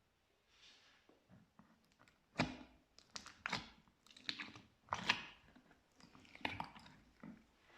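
Slime being squeezed and pressed by hand: a run of five or six short, crackly squishes, the loudest about two and a half seconds in and again about five seconds in.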